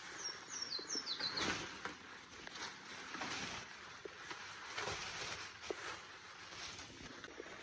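A bird's run of short, falling chirps in the first second and a half, over scattered rustling and crunching noises.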